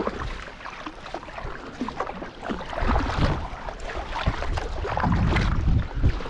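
Kayak paddle blades splashing into the sea stroke after stroke, with water washing along the hull. Gusts of wind buffet the microphone with a low rumble about three seconds in and again near the end.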